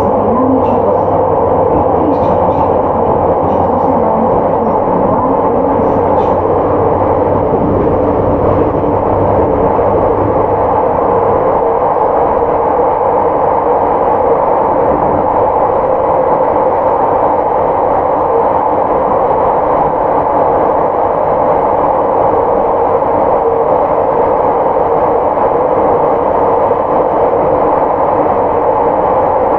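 Running noise inside a JR Hokkaido 731 series electric train car with early Hitachi IGBT drive, moving along at speed: a steady, loud rumble of wheels on rail. A low steady hum under it fades out about twelve seconds in.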